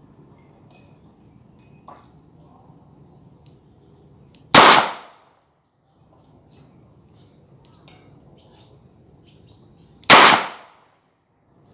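Two shots from a long-barrelled 9 mm revolver, about five and a half seconds apart, each a sharp crack with a short fading tail. Crickets chirp steadily behind them.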